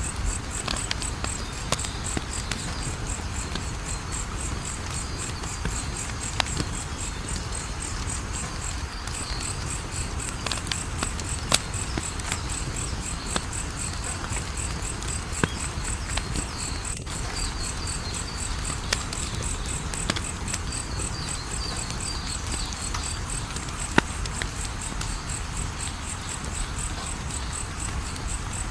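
Wood fire crackling, with scattered sharp pops over a low rumbling hiss, against a steady high, fast-pulsing chirping of crickets. Two louder pops stand out, one near the middle and one towards the end.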